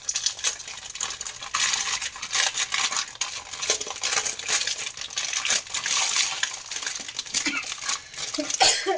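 Small kitchen items and their packaging being handled on a counter: a steady run of light clicks and clinks with rustling.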